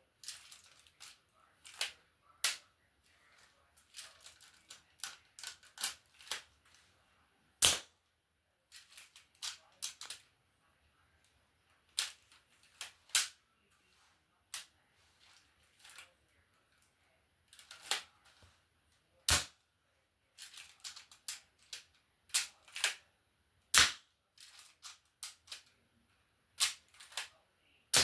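Sharp plastic clicks and snaps from a LEGO-built Desert Eagle pistol being worked, coming irregularly with quiet gaps between them. Three snaps, about 8, 19 and 24 seconds in, are much louder than the rest.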